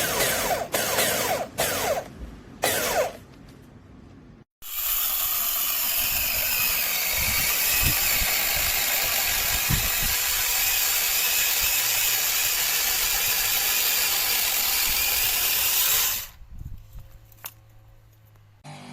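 Cordless brushless mini chainsaw: several short trigger bursts, then after a brief pause it runs steadily for about eleven seconds and cuts off suddenly.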